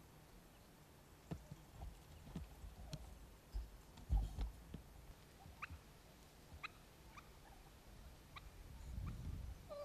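Domestic turkey calling in a series of short, thin calls, with a short gliding call near the end. Before the calls, a camera tripod is handled with knocks and thumps, the loudest about four seconds in.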